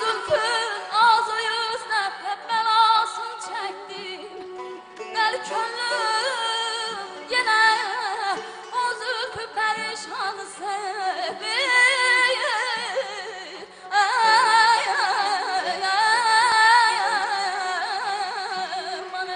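A young girl singing mugham in a high voice with wavering, trilled ornaments and no clear words, accompanied by a traditional Azerbaijani ensemble of tar and kamancha. The voice breaks off briefly about two thirds through, then comes back strongly.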